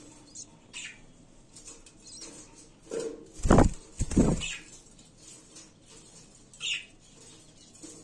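Budgerigars fluttering in the breeding cage: two short, loud bursts of wing flapping about three and a half and four seconds in, and a short high budgie chirp near the end.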